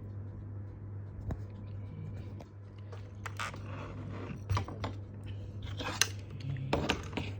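Hands handling a FrSky Taranis QX7 radio transmitter: scattered plastic clicks and scraping, busiest in the second half, with one sharp click about six seconds in, over a steady low hum.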